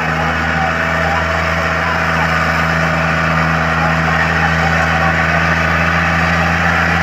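Diesel tractor engine running steadily under heavy load as it pulls a disc plough through the soil, a loud, even drone.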